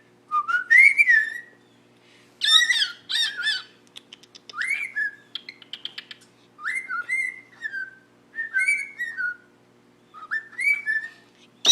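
Pet cockatiel whistling a repeated song: about six short phrases of rising and falling whistles mixed with quick raspy chatter, with short pauses between them.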